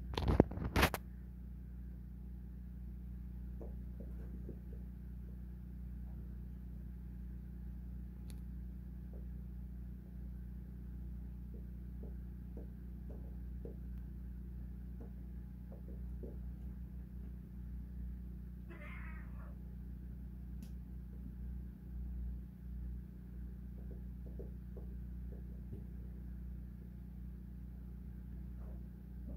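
Sphynx cats scuffling: a few sharp knocks in the first second, then one short cat cry a little after halfway and another that falls in pitch at the very end, over a steady low hum.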